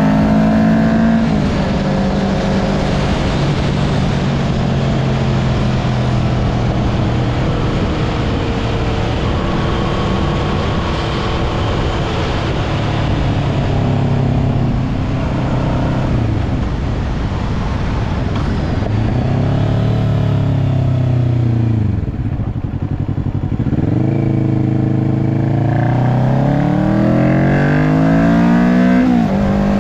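Kawasaki Ninja 650 parallel-twin engine running through an aftermarket slip-on muffler and link pipe, its pitch climbing and dropping several times as it is revved, with the longest climb near the end.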